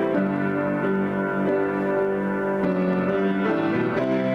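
Solo grand piano playing an improvisation: held chords ring on and give way to new ones about once a second.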